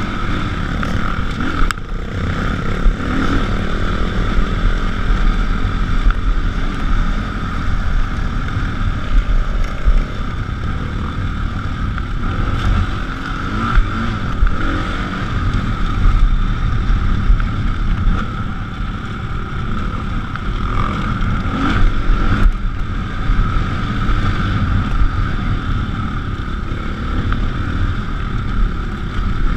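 Onboard sound of a dirt bike's engine running steadily under way over rough ground, with wind noise on the microphone.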